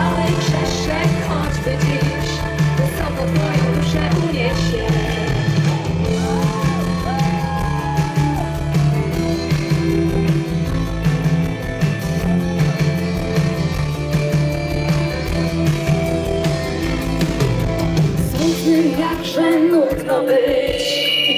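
Live pop-rock band playing with drums and bass, with some singing over it. About eighteen seconds in the bass and drums stop, leaving only a few voices.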